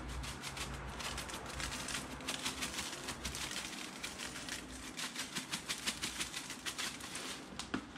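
Coarse Montreal steak spice rattling out of a large plastic shaker jar as it is shaken over a meat roast: a quick, irregular run of ticks and rustles that grows busier in the middle.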